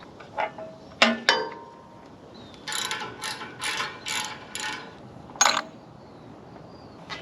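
Metal hand tools at work on a sawmill's engine: a few sharp clicks, then a run of about five quick strokes, two or three a second, and one more sharp click.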